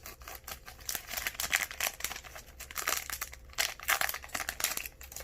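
Foil wrapper of a Pokémon booster pack crinkling and crackling in the hands as it is torn open, a steady run of small irregular crackles.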